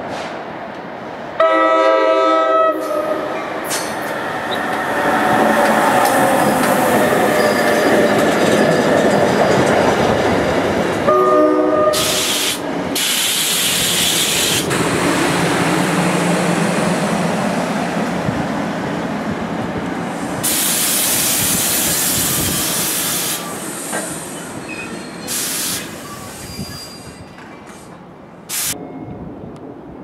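NJ Transit commuter train arriving, sounding its five-chime air horn (a Nathan K5LA) twice: about a second and a half in, then a shorter blast about eleven seconds in. Between and after the blasts its wheels and coaches rumble and click past on the rails, with some wheel squeal and long stretches of rushing hiss.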